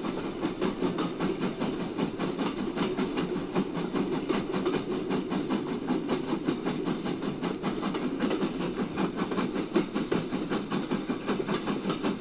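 Steam train running at speed, with a fast, even rhythmic beat.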